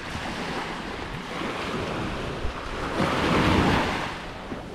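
Sea waves breaking and washing up the beach, with wind buffeting the microphone; one wave surges loudest about three seconds in, then it eases off.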